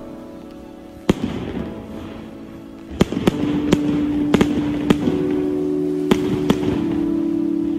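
Fireworks bursting overhead: a sharp bang about a second in, then a run of bangs with crackling from about three seconds in. Under them, music with long held notes comes in louder about three seconds in.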